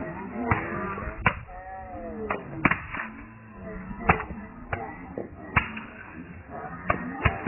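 Concrete blocks smashing smartphones on the ground: about nine sharp knocks at an uneven pace, several blocks striking, with voices in between.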